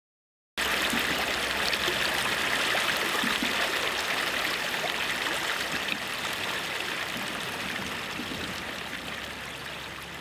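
Rushing river water: a steady, even rush that cuts in suddenly about half a second in and then slowly fades.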